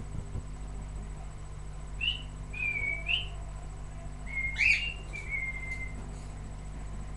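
Pet parrot whistling: four or five short whistled calls that slide up and down in pitch, starting about two seconds in. The loudest, with a harsher edge, comes just before the five-second mark. A low steady hum runs underneath.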